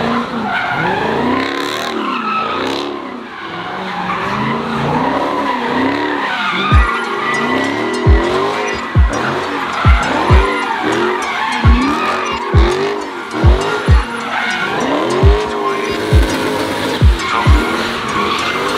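A hip-hop beat with deep 808 bass hits that drop in pitch, coming at uneven intervals from about six seconds in. It is mixed with the noise of cars at a car meet: tyres skidding and engines revving.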